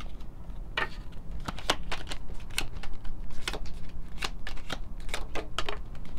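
A small deck of oracle cards being shuffled by hand, giving a string of irregular soft snaps and flutters, two or three a second.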